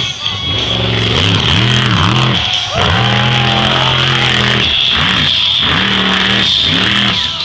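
Monster truck engine revving hard in repeated bursts, its pitch rising and falling, held high for a second or so in the middle, then blipped several times near the end.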